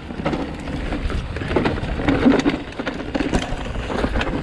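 Transition Spire mountain bike descending a dirt trail: steady rumble of tyres and wind on the microphone, with frequent sharp clicks and rattles from the bike as it goes over the rough ground.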